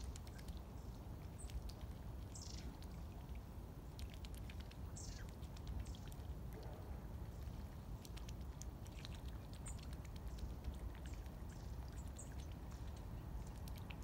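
Small birds calling with thin, high, downward-sliding notes every couple of seconds and a few short high chirps, over a steady low background rumble with faint scattered ticks.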